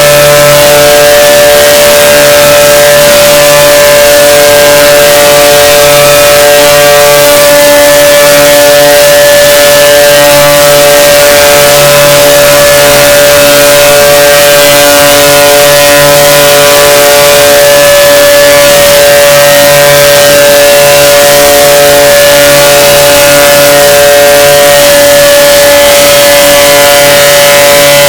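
The 'bruh' meme sound effect, a man's voice saying 'bruh', time-stretched into a very loud, steady droning tone with a harsh hiss over it.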